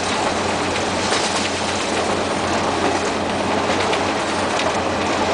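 Diesel-electric locomotive running along the track, heard from inside its cab: a loud, steady mix of engine hum and wheel-on-rail noise, with a few clacks from the rail joints.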